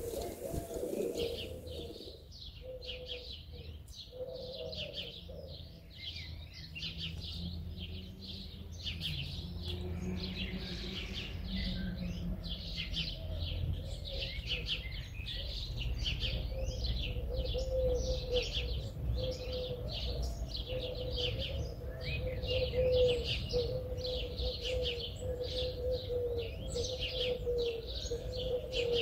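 Many birds chirping in quick, continuous calls over a steady low hum.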